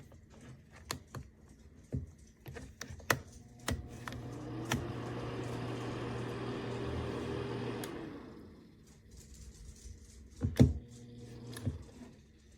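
Aikoper 1500 W ceramic space heater being handled, with its switch clicking as it is pressed; about three and a half seconds in the heater's fan starts with a rising whine and hum, runs about four seconds, and winds down when the switch is let go. The heater runs only while the switch is held down, the fault it has developed. A sharp knock comes near the end.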